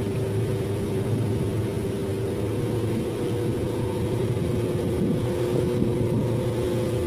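Boat engine running steadily at constant speed, an even drone with a low hum and a couple of fixed higher tones.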